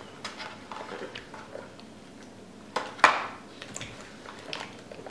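A small cardboard candy box being opened and handled: soft rustles and small scrapes, with one sharp, louder snap or tear about three seconds in.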